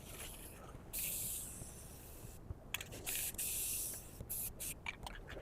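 Aerosol can of Rust-Oleum flat black spray paint hissing in spurts: a long spray of about a second and a half, a shorter one, then several quick short puffs near the end.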